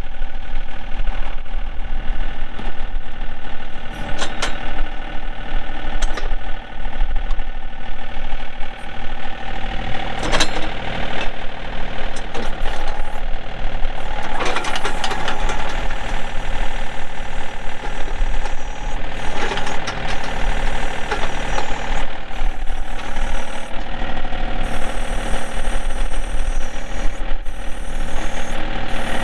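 John Deere 2032R compact tractor's three-cylinder diesel engine running steadily, with a few brief sharp knocks over it.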